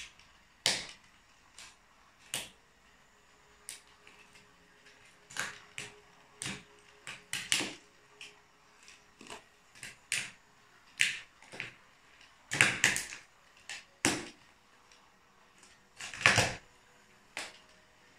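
Plastic toy train track and carriages cracking and snapping under stiletto heels, in irregular sharp cracks. Some come in quick clusters, and the loudest come in the second half.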